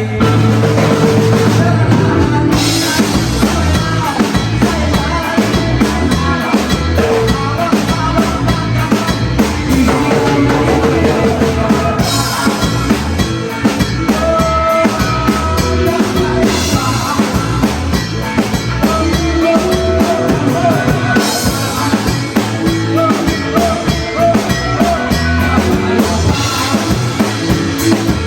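A band playing rock music, with the drum kit prominent, including bass drum and snare rimshots.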